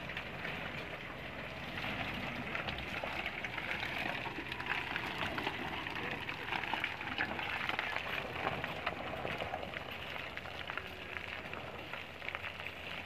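Mitsubishi Triton pickup's tyres crackling and squelching as they work through wet mud and loose stones on a slippery descent, with a low rumble beneath.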